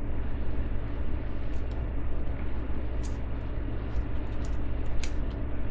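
Steady low hum of background noise, with a few faint short clicks and scrapes as a small key-shaped backlock knife cuts through 550 paracord.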